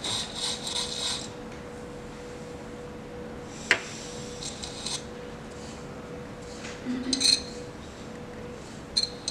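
A hand scraper (rasette) scratching and raking through synthetic modelling sand in short spells, with one sharp click about four seconds in.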